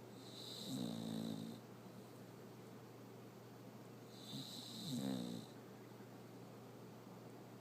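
Bulldog snoring in its sleep: two long snores about four seconds apart.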